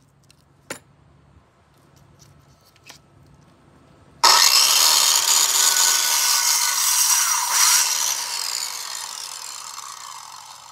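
A few light handling clicks, then about four seconds in a circular saw starts abruptly and cuts through a stick of firewood. After the cut the blade keeps spinning and the sound fades slowly as it winds down.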